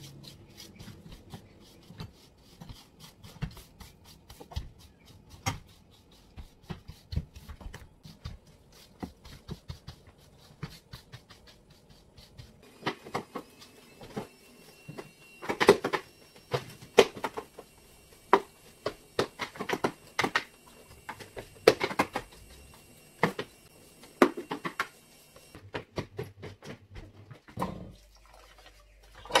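Broom sweeping a wooden floor and stairs: a long run of short brushing strokes and scuffs, small and quick at first, then louder and more spaced from about halfway through.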